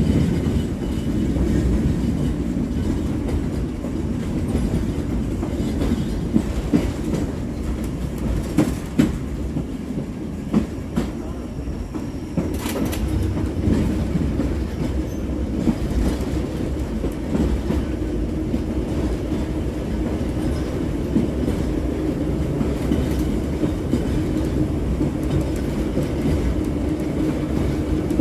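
J.G. Brill-built trolley car rolling along the track, heard on board: a steady low rumble of the running car with sharp clacks of the wheels over rail joints, and a brief high wheel squeal near the middle.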